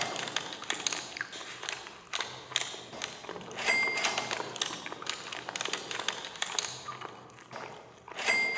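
Cash register sound effect looping: a dense mechanical clatter of keys and drawer clicks, with a short bright bell ding twice, about four and a half seconds apart.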